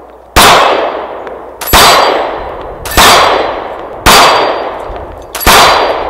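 Glock 43 9mm pistol fired five times at an even pace, a shot every second or so, each followed by the ringing clang of the steel plate target it hits.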